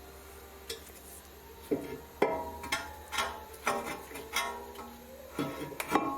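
Small metal brake parts clinking together as they are handled: about nine irregular knocks, each leaving a short metallic ring.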